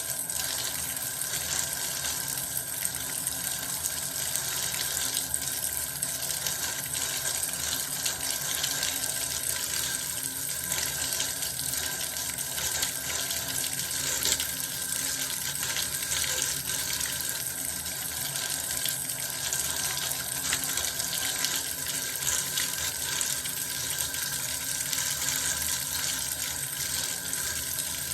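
Bath water running: a steady stream of water splashing into the tub, unbroken throughout.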